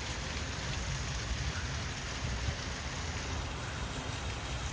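Water running steadily over a small waterfall, a continuous rushing hiss.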